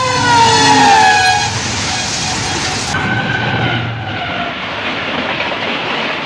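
Diesel locomotive horn blowing as the train passes at speed, its chord dropping in pitch as it goes by, over the loud rumble and rush of the train. About three seconds in, the sound changes to the steady rush of a train passing close by, with another horn tone falling briefly.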